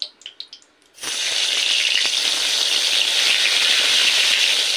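Hot mustard oil in a kadai gives a few soft crackles. About a second in, a loud, steady sizzle starts suddenly as pieces of brinjal go into the oil and begin to fry.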